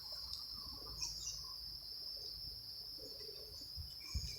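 Steady high-pitched trilling of insects, likely crickets, with a few faint bird-like chirps. Two low thumps come near the end.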